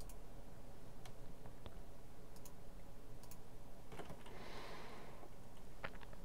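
Scattered computer mouse clicks and a few keyboard key presses, irregular and light, over a steady low electrical hum.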